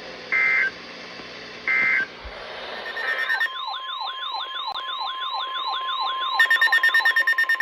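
Two short bursts of digital alert-data tone, the end-of-message code closing the previous warning. Then an electronic warbling siren tone, rising and falling about three times a second, joined near the end by loud, rapid electronic beeping: the alert tones ahead of the next warning.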